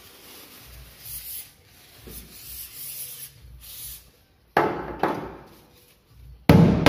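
An aerosol pipe freezer hisses in short bursts as it is sprayed onto a car's bitumen sound deadening to freeze it brittle. Then two sharp hammer knocks on the frozen deadening over the steel floor, and near the end loud music with a steady beat starts.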